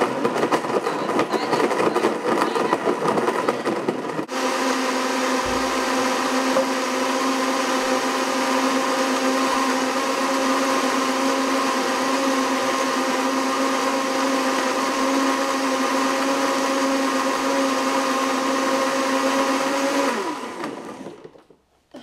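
Countertop blender blending a shake: rough and rattling for about the first four seconds, then a steady whir until it is switched off about 20 seconds in and winds down.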